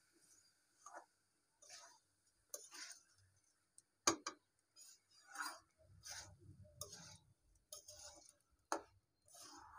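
Metal spatula scraping and knocking against a wok-style pan while dry rice and lentils are stirred and fried, in irregular short strokes, the loudest knock about four seconds in.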